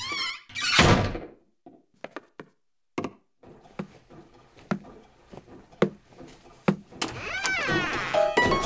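Cartoon door sound effects: a heavy thud about a second in, then a few single sharp knocks about a second apart, and a squeaky sliding sound as the door swings open near the end.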